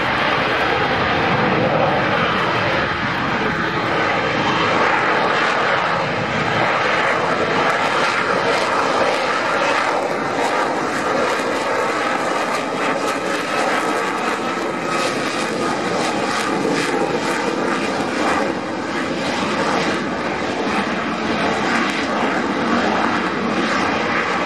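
F-35B Lightning II hovering in short-take-off-and-vertical-landing mode, its F135 engine and lift fan running with a steady loud roar and a faint whine.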